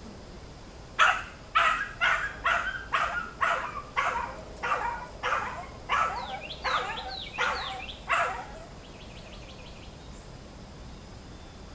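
A dog barking repeatedly, about fourteen barks at roughly two a second, then stopping.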